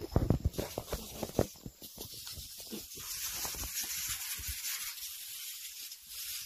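Gloria backpack sprayer's wand nozzle spraying with a steady hiss. Knocks and rustles in the first second or so.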